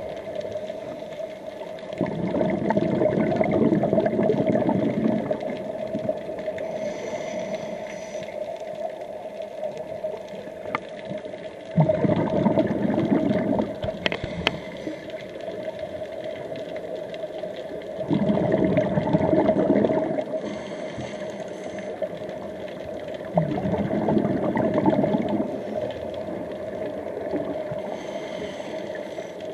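Scuba diver breathing underwater through a regulator: four bursts of exhaled bubbles, each lasting two to three seconds, about every five to six seconds, over a steady hum.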